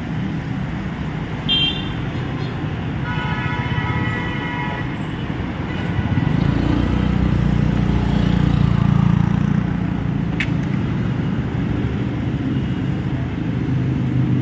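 Road traffic at a busy city junction, a steady engine and tyre rumble, with a car horn beeping briefly about a second and a half in and then a longer honk of about two seconds. From about six seconds a passing vehicle's engine rumble swells, loudest around eight to nine seconds, then eases.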